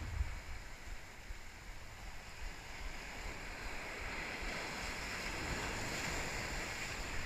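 Ocean surf washing over the rocks of a jetty, a steady hiss that swells from about halfway through, with low wind rumble on the microphone.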